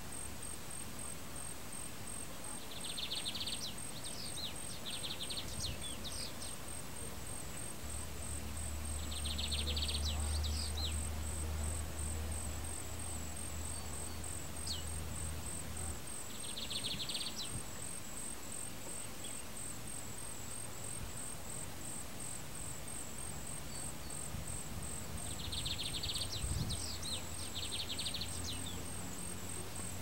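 Outdoor ambience: a steady high insect trill, like crickets, with a bird or insect giving short bursts of rapid trilling notes and chirps four times, and a low rumble for several seconds in the middle.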